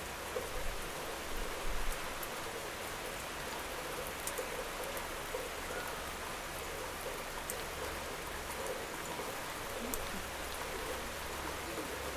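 Steady rain falling, an even hiss with individual drops now and then ticking sharply on a hard surface.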